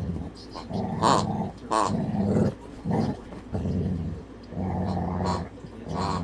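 Dog growling softly in repeated low rumbles with short pauses between them.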